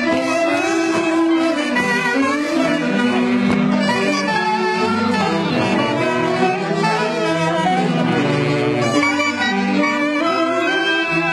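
Band music: wind instruments playing a lively dance tune at a steady, loud level.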